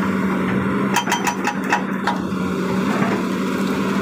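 Excavator engine running with a steady hum, and a quick run of sharp knocks about a second in, like a hydraulic rock breaker hammering.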